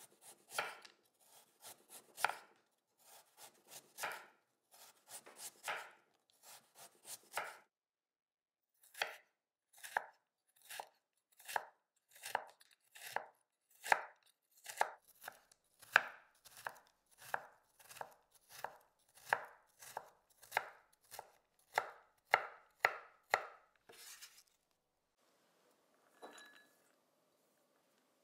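Kitchen knife cutting a carrot on a wooden cutting board: sharp knocks of the blade through the carrot onto the board. The knocks are irregular at first, then after a short pause come in an even run of about one and a half a second, until they stop a few seconds before the end.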